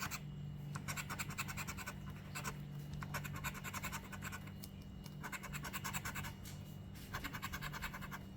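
Scratch-off lottery ticket being scratched, in a series of short bursts of rapid back-and-forth strokes with brief pauses between them, over a steady low hum.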